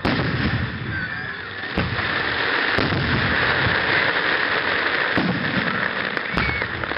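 Aerial firework shells bursting: about five sharp booms spaced one to two seconds apart, over a continuous noisy wash that fills the gaps between them.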